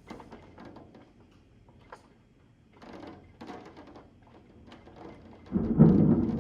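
Thunder in a severe thunderstorm: a rumble dies away, followed by scattered light taps. About five and a half seconds in, a loud thunderclap breaks into a deep rolling rumble.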